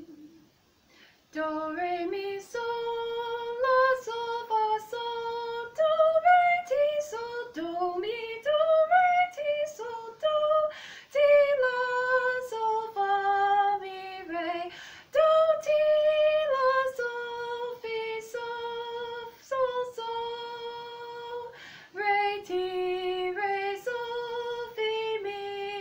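A woman's voice sight-singing a melody unaccompanied, note by note, in short phrases with brief pauses between them.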